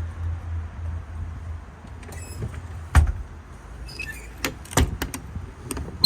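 A low, pulsing running hum from the service truck dies away about a second and a half in. About three seconds in comes one loud thump, then a string of sharp knocks and clicks near the end, like handling of the body's compartments.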